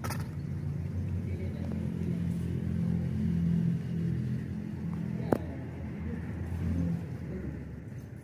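A motor vehicle's engine running with a steady low hum, swelling about three seconds in and dying away near the end. A single sharp click sounds a little past the halfway point.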